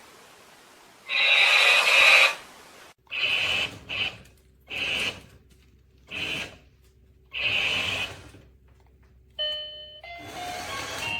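Remote control robot spider toy: a series of short hissing bursts, about six of them, then an electronic beeping tune starting near the end.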